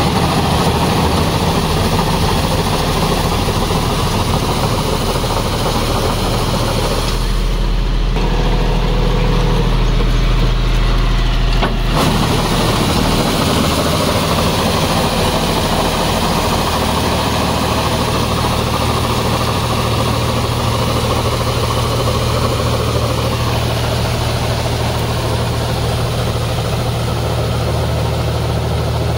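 John Deere 5050D tractor's three-cylinder diesel engine running steadily under load while pulling a rotavator through deep mud. For a few seconds, about a quarter of the way in, the higher noise drops away and the deep engine note stands out.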